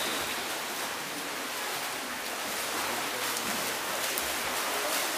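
Water splashing and churning in an indoor pool as water polo players swim, a steady hiss of noise with a few faint knocks.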